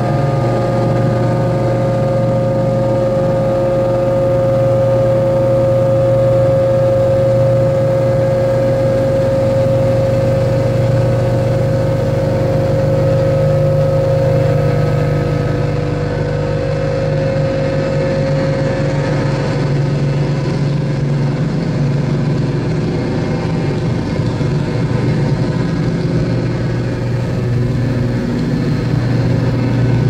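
Experimental electronic drone played live over loudspeakers: several steady held tones layered over a low hum and hiss, with no beat. The highest hiss cuts out about halfway through, the strongest middle tone fades over the next few seconds, and the low hum swells back up near the end.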